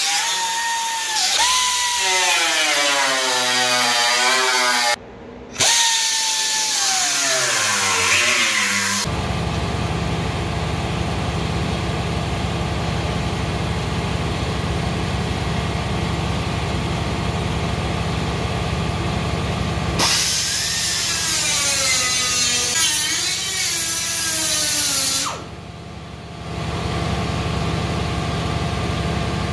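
Small air-powered cutoff tool whining as its wheel cuts rusted sheet-steel quarter panel, the pitch sliding down and up as the wheel bites and frees, with a short break about five seconds in. For a long middle stretch and near the end the whine is gone, leaving a steady low mechanical running noise, before the cutting whine returns for a few seconds.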